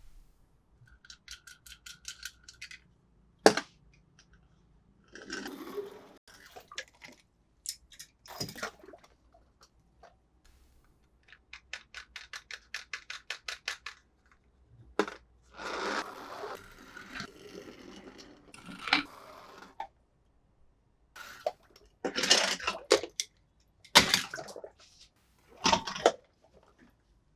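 Small plastic and die-cast toy cars and their packaging being handled: scattered clicks, knocks, rattles and scrapes, with two runs of quick, even ticking at about six a second.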